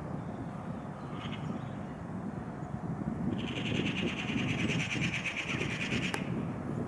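A bird calls briefly about a second in. From about halfway through it gives a loud, rapid trill of fast repeated notes for about three seconds, which stops abruptly, over a steady low rumble.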